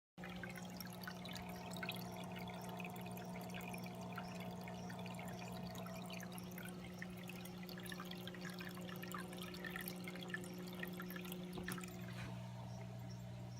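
Water trickling and dripping down a paludarium's branch waterfall, with small irregular splashes over the steady low hum of its water pump.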